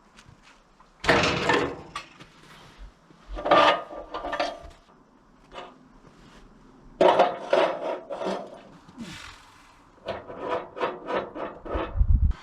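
A log being worked on a portable sawmill bed: bursts of wood scraping and rubbing, then a quick run of short scrapes near the end.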